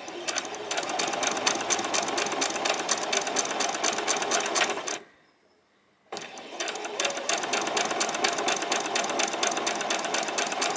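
Domestic sewing machine stitching a seam, a fast even run of needle strokes. It stops for about a second midway, then starts again.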